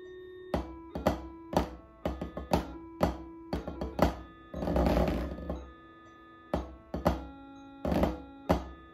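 Drumsticks striking a practice pad set on a snare drum in a snare-drum pattern of single strokes and accents, with a short roll about five seconds in. A backing tune of held notes plays underneath.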